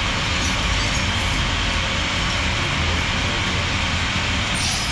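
Compressed-air blow gun blasting steel chips off a workpiece inside a CNC mill enclosure: a steady hiss.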